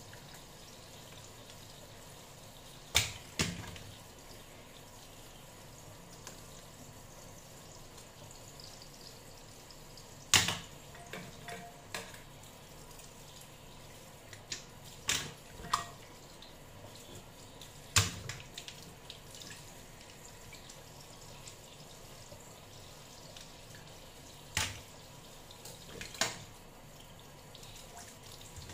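Kitchen tap running a thin stream into a stainless-steel sink while mussels are rinsed under it, with several sharp clacks at irregular intervals as the shells and scissors are handled.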